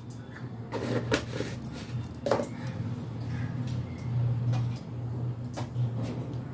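A few light knocks and clinks of a spoon and containers as spice is added to a marinating bowl, over a steady low hum.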